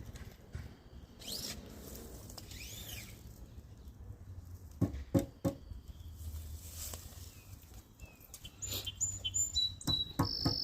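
Birds calling with short whistled chirps, and a few sharp knocks about five seconds in and again near the end, over a low steady rumble.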